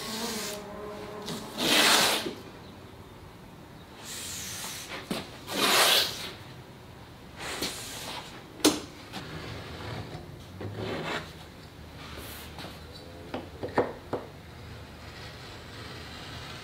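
Blue painter's tape pulled off the roll in three loud ripping pulls and pressed down along a timber board, followed by a few light clicks and taps as it is handled and trimmed.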